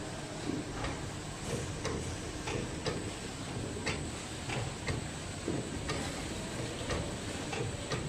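Date ball forming and coconut coating machine running, with a regular mechanical clicking about twice a second over a steady running noise.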